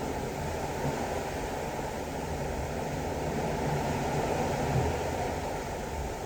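Steady rush of sea water along a moving cruise ship's hull, heard from a balcony, swelling slightly about four to five seconds in.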